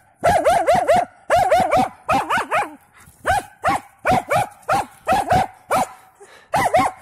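Hunting dog barking repeatedly in quick runs of sharp barks, about three a second with brief pauses between runs.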